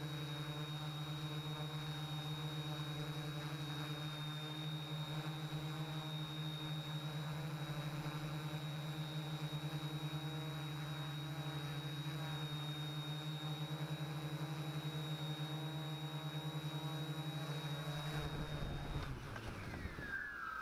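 Quadcopter's electric motors and propellers humming steadily while it hovers and descends, heard from the camera mounted on its frame. The quadcopter settles on the ground near the end, and the motors spin down with a falling whine.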